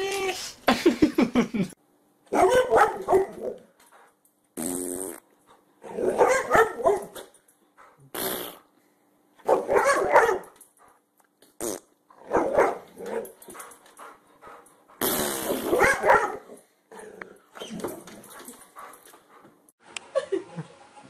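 Dogs barking and growling in a run of short bursts broken by brief silences, mixed with fart sounds.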